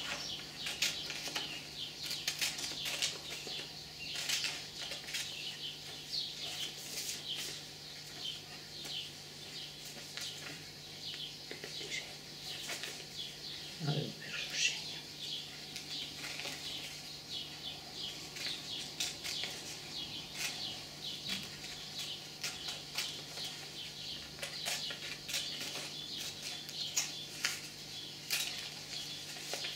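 Scissors snipping through glossy magazine paper, with the paper crackling and rustling as it is turned in the hand; many irregular crisp snips and crackles.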